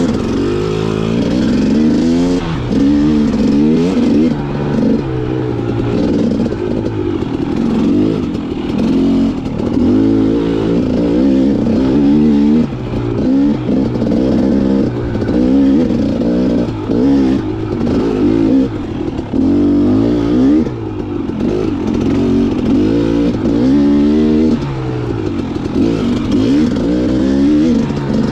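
KTM XC 300's single-cylinder two-stroke engine being ridden on a trail, revving up and dropping back again and again.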